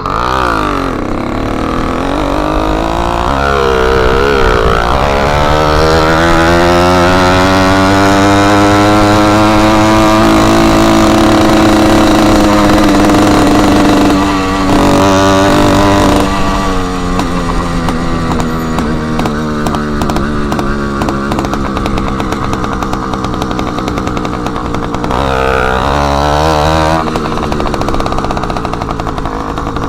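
Small engine of a motorized bicycle running loud and raw with the exhaust tip removed, revving up over the first few seconds to a high steady pitch. About halfway through it eases off and then runs at lower, wavering revs with a couple of short blips.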